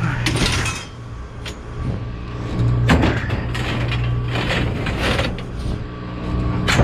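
Scrap metal pipe and rods clattering and scraping together as they are pulled from a tangled pile, in several separate rattling bursts with a sharp clank near the end. A steady low hum runs underneath.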